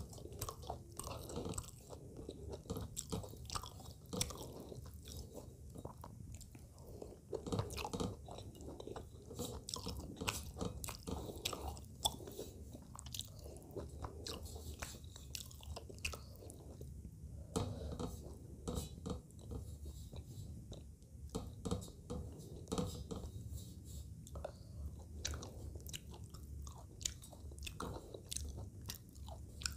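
Close-miked chewing of pabda fish by hand, with many small, quick wet clicks and soft mouth noises.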